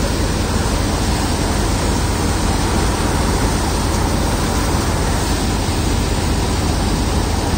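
Mechanical thresher running steadily as mustard stalks are fed into its drum: a continuous loud rushing noise over a low, even hum.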